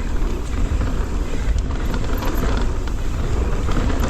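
Transition Sentinel mountain bike riding fast down a dirt singletrack: a steady rush of wind buffeting the camera microphone and tyre noise on the trail, with a few small knocks from the bike over rough ground.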